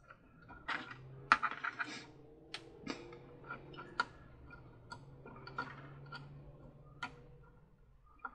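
Irregular light clicks and taps of small plastic parts being handled and fitted at a plastic carousel's rotor hub and circuit board, while wires are fed up into the assembly.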